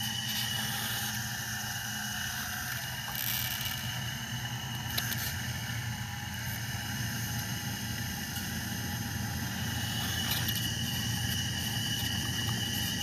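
Radio-controlled hydraulic excavator working as it digs and loads sand: its hydraulic pump and motors make a steady high-pitched whine over a low hum.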